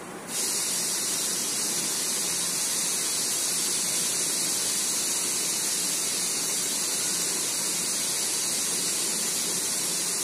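A steady, even hiss, strongest in the high range, that switches on abruptly just after the start and holds at one level.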